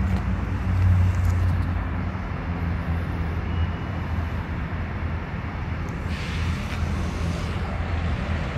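Steady low rumble of road traffic around the intersection, with a vehicle passing about six seconds in.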